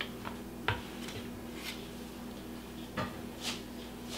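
Wooden spoon scooping a moist ground beef and zucchini mixture out of a frying pan: soft scrapes, with light knocks of the spoon against the pan about a second in and again about three seconds in, over a faint steady hum.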